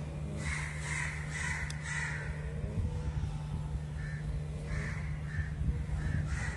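Birds calling: a run of four short calls about half a second apart in the first two seconds, then more calls from about four seconds in, over a steady low hum.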